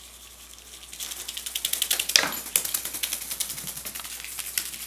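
Rapid, irregular scratching and clicking as kittens scrabble at a cardboard playhouse, starting about a second in, with one sharper tick a second later.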